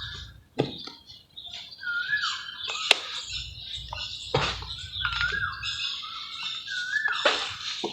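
Dry red mud crumbling and breaking in or into water: uneven crunches and knocks over a constant fine crackle. A short up-and-down chirp sounds three times behind it.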